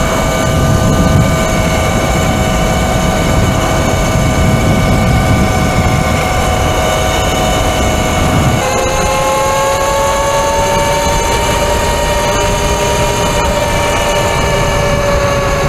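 Eride Pro SS 72-volt electric dirt bike at about 60 mph: a steady electric motor whine over wind rushing past. About eight and a half seconds in, the whine drops in pitch and then slowly climbs again, and the wind rush eases.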